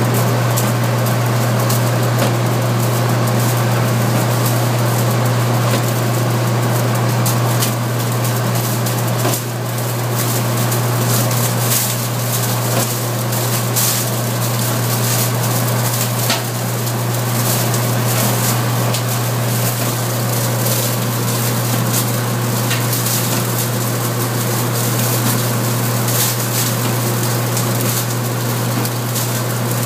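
Straw shredder running, its spiral rotor tearing through straw: a steady low machine hum under a constant rustling crackle of straw being ripped apart.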